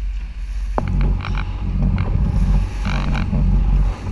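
Speedboat running at speed through choppy sea: wind buffeting the mounted camera's microphone, over the rush and splash of the hull and its foaming wake, with a sharp knock about a second in.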